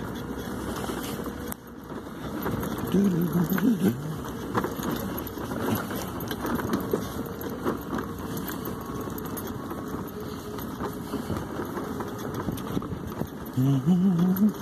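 Electric mobility scooter driving fast over paving: a steady running noise with a faint steady hum and its body and fittings rattling. Two brief low pitched sounds break in, about three seconds in and near the end.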